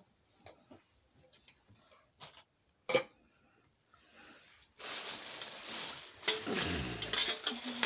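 Items being handled by hand: a few soft clicks and taps, one sharper click, then from about five seconds in a louder rustling of plastic with several knocks.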